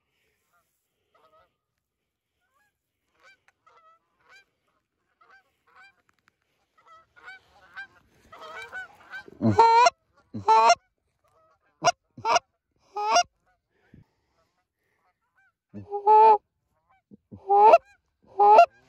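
Canada geese honking: faint scattered honks at first, then loud, close honks in two quick runs, one starting about halfway through and another near the end.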